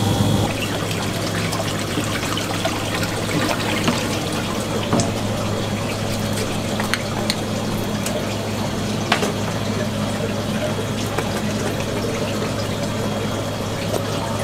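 Water running and splashing in a live-fish holding tank, with a steady low hum and a few sharp clicks.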